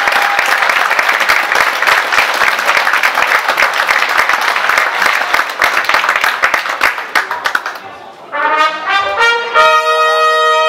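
Audience applauding steadily, dying away about seven seconds in. About eight seconds in, a brass instrument plays a few short notes and then holds a note.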